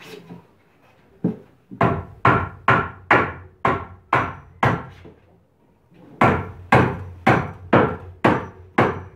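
Claw hammer driving nails through a wooden batten into a timber shoring post. A run of about nine blows, a short pause, then about six more, roughly two a second.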